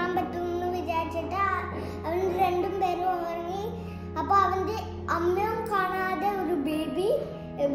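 A young child singing a song over backing music with a steady low accompaniment.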